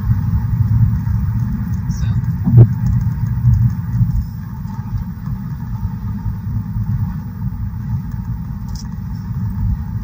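Steady low road rumble of a car driving at road speed, heard from inside the cabin, with a single brief thump about two and a half seconds in.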